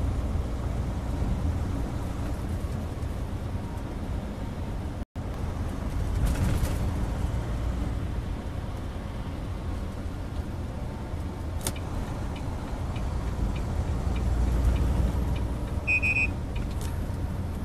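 Semi-truck tractor running at highway speed without a trailer, heard from inside the cab: a steady low engine and road rumble. The sound cuts out for an instant about five seconds in, and a short beep sounds near the end.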